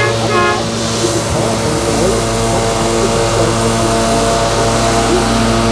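Fendt tractor running steadily under load as it drives a Pöttinger front-and-side mower combination, a continuous even drone. A short toot sounds right at the start.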